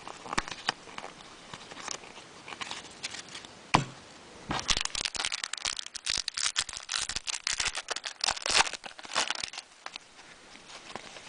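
A baseball card pack wrapper being torn open and crinkled: scattered crackles at first, then a dense run of crinkling and tearing from about four and a half seconds in until near ten seconds.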